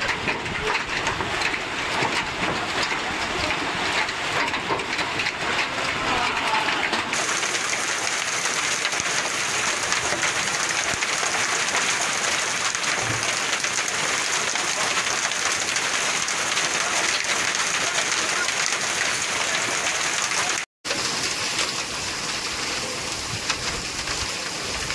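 Heavy rain pouring down and pattering on open ground. The sound changes character at a cut about seven seconds in and drops out for an instant about 21 seconds in.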